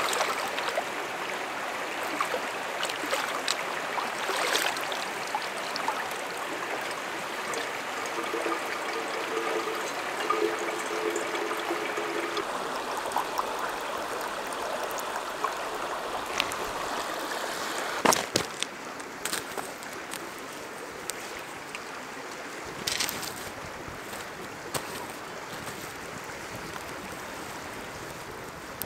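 A shallow river running steadily over rocks, with water trickling and splashing as a cloth filter bag is soaked and drains. A single sharp knock a little past halfway.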